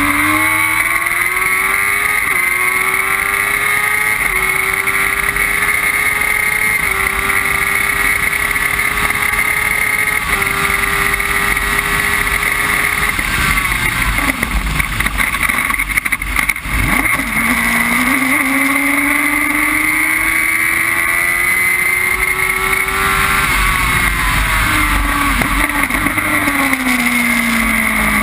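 Onboard sound of a Formula Jedi single-seater's motorcycle engine accelerating up through the gears. The pitch climbs and drops back at each upshift, then falls away about halfway through as the car brakes and changes down. It climbs again and falls once more near the end.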